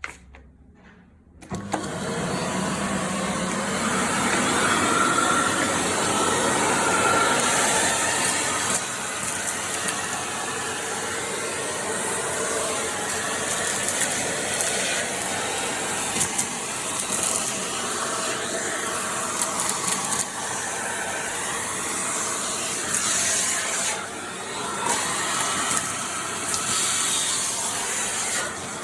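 Philips 1900 W vacuum cleaner switched on about a second and a half in, then running steadily with its pitch wavering slightly.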